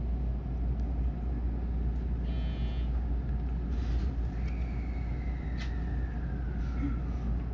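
Inside a JR West 223 series 2000 electric train pulling away from a station: a steady low rumble, with a short buzz a couple of seconds in and, from about halfway, a thin whine that slowly falls in pitch.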